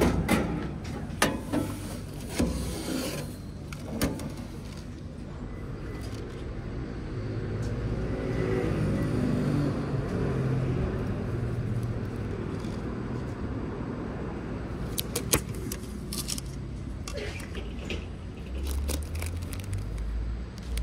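A few sharp clicks and knocks, then a motor vehicle's sound swells and fades through the middle. Later come crisp clicks and crackles from a plastic cup-noodle lid being peeled off and a foil soup packet handled.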